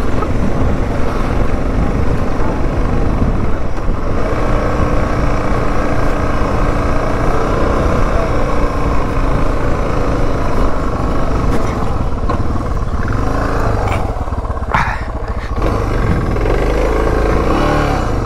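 Off-road motorcycle engine running while being ridden over a dirt and sand track, its pitch rising and falling a few times with the throttle.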